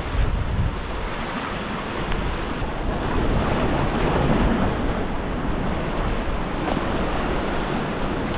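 Ocean swell surging and breaking white over a rock ledge, with wind buffeting the microphone.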